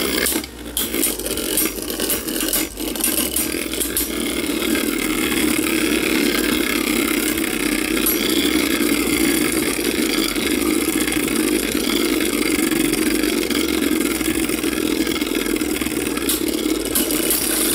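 Two Beyblade Burst tops, Zillion Zeus I.W. and Holy Horusood, spinning in a clear plastic stadium: a steady whirring scrape of their tips on the stadium floor. Sharp clacks when the tops hit each other come in the first few seconds and again near the end.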